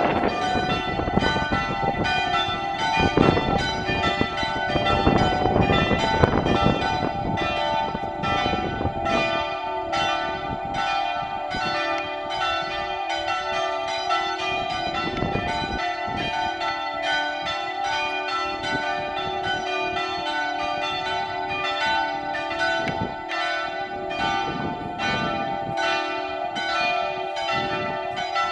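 Full peal of three swinging church bells tuned d'', e'' and f-sharp'', their strokes overlapping continuously over a sustained ringing hum.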